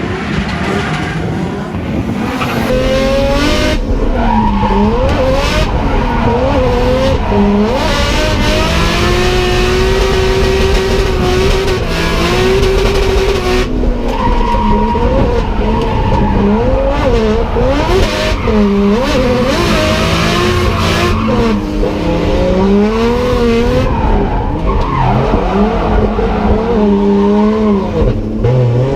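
Nissan S14's swapped RB25 turbocharged straight-six revving hard, its pitch rising and falling constantly as the car drifts, over the steady noise of tyres squealing and skidding.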